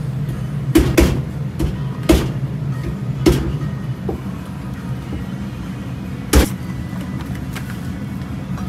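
Background music over kitchen work, with several sharp knocks and clatters; the loudest comes about six seconds in.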